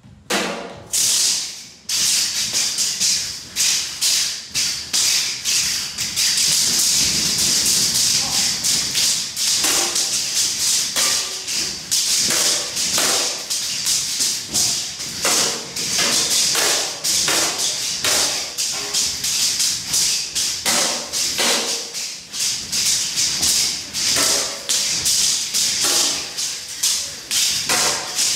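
Kalaripayattu sword-and-shield sparring: rapid, irregular strings of sharp clashes as a sword strikes a round shield, each hit ringing briefly.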